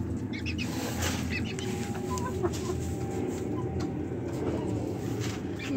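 Chickens clucking, with short high peeps scattered through the first couple of seconds.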